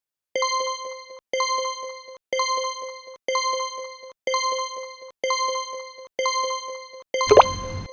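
Countdown timer ding struck once a second, each a bright bell-like tone with several overtones that rings and fades before the next. About seven seconds in, each ding is joined by a louder added effect: a falling tone over a low rumble.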